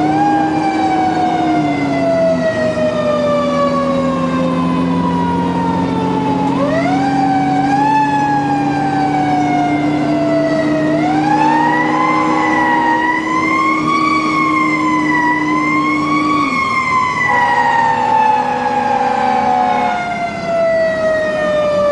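Fire-engine siren of a 1999 Pierce Saber pumper, heard from inside the cab while responding. It rises quickly and winds down slowly, is wound up again twice, and wavers up and down for a few seconds before winding down at the end. The truck's engine runs underneath it.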